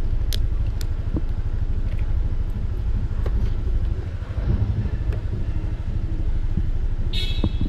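Motor scooter's small engine running with a steady low rumble, with a few light clicks. A brief high-pitched tone sounds near the end.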